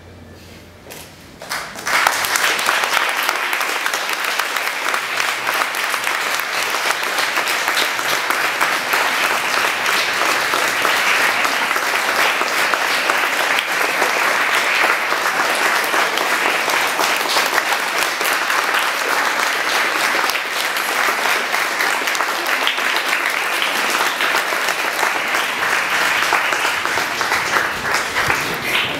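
Audience applauding, starting suddenly about two seconds in and going on steadily until it falls away near the end.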